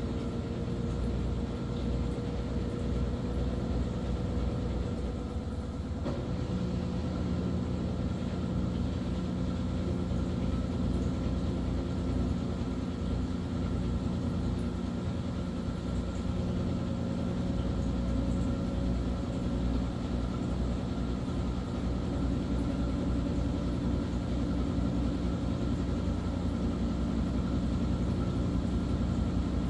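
Maytag washing machine running: a steady mechanical rumble with a fast low pulsing, a hum that shifts slightly about six seconds in, and a faint tone that rises slowly.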